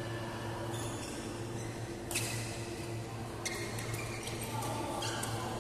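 Badminton rally: a racket hits the shuttlecock several times, sharp hits roughly a second and a half apart, over a steady low hum in a large hall.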